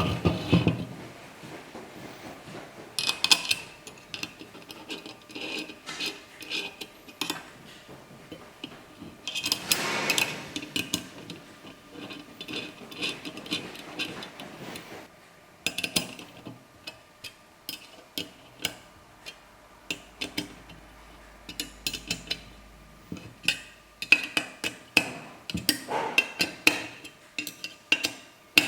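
Metal parts and hand tools clinking, clicking and scraping in irregular bursts as an aluminium mount is assembled by hand, with a longer stretch of scraping about ten seconds in.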